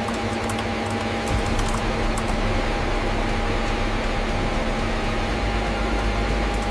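Steady mechanical whir and hiss with a constant low hum and a steady mid-pitched tone, a few faint ticks in the first two seconds.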